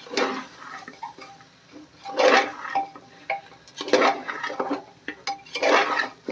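Steel spatula stirring and scraping chunks of goat head and trotters in thick spice masala inside a pressure cooker pot: about four rough scraping strokes, with metal clinks between them.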